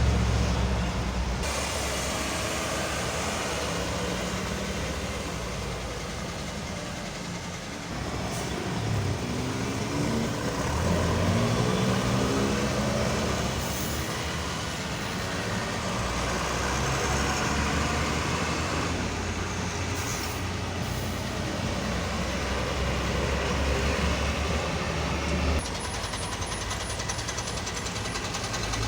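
Heavy vehicle engines running at low speed, with one engine revving up as it pulls away about eight to twelve seconds in. A few short air hisses come in the middle.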